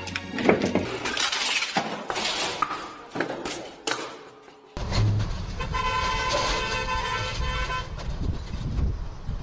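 A series of sharp knocks and clatters, then after a cut, traffic noise with a vehicle horn sounding one steady blast of about two seconds.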